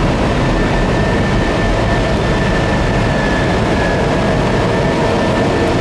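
Airbus A320 cockpit noise in the initial climb after takeoff: a loud, steady rush of airflow and engine noise, with a faint steady high whine running through it.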